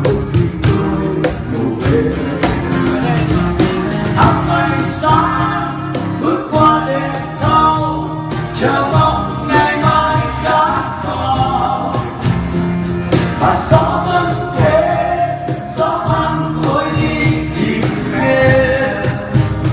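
Acoustic Vietnamese pop ballad: a male voice singing a slow melody over acoustic instrumental accompaniment.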